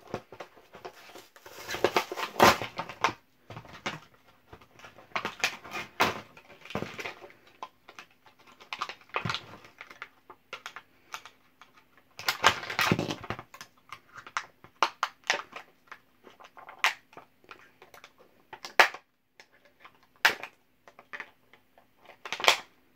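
Toy packaging being opened by hand: cardboard tearing and plastic wrap crinkling and being cut with a small knife, heard as irregular rustles, snaps and clicks. Longer tearing bursts come about two seconds in and again about twelve seconds in.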